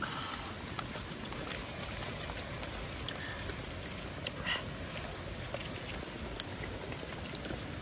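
Steady outdoor hiss with scattered small clicks and rustles as fresh leaves are folded around snails by hand and pinned with bamboo slivers.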